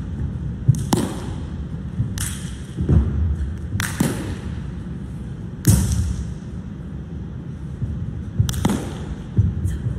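A wushu changquan routine heard on the floor: sharp slaps and swishes at an irregular pace, seven or eight of them, from hands striking feet and body in kicks and from the silk uniform whipping, with dull thumps of feet landing on a carpeted competition mat. The sharp sounds echo briefly in a large hall.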